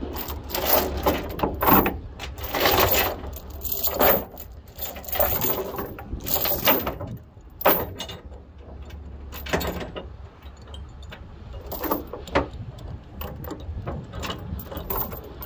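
Steel tie-down chain clinking and rattling as it is pulled and dropped across a wooden trailer deck, in irregular bursts of clanks.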